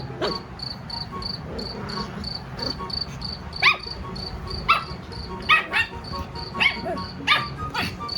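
Recorded cricket chirping played through a speaker, an even pulse of about three to four chirps a second. From about halfway in, a dog gives about seven short, sharp barks over the chirping.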